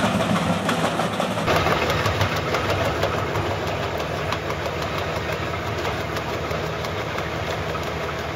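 Heavy machine's engine running steadily, with a change in the sound about one and a half seconds in.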